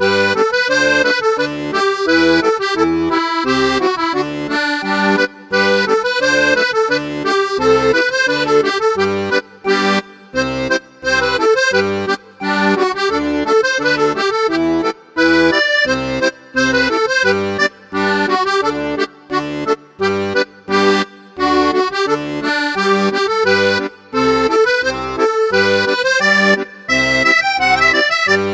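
Instrumental background music with a steady, bouncing beat.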